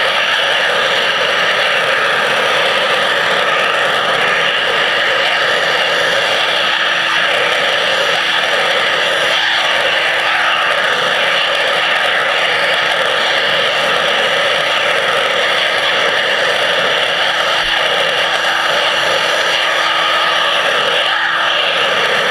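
Underwater pressure-washer jet blasting from a lance nozzle against a stainless steel intake screen, a steady loud hiss with a constant low hum beneath it.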